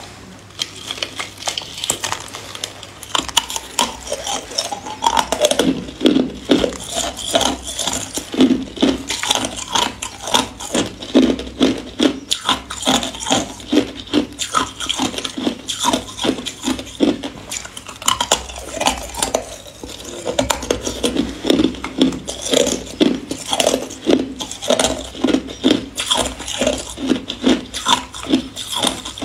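Close-miked ice being bitten and crunched in the mouth: a dense run of crackling crunches, several a second. Now and then ice pieces clink against each other as they are worked out of a silicone ice mould.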